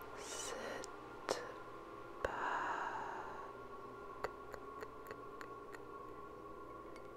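Ambient electronic music: a soft, steady synth drone with tapping layered over it. Two sharp taps come in the first few seconds, the second followed by a brief noisy swish, then a run of lighter clicks around the middle.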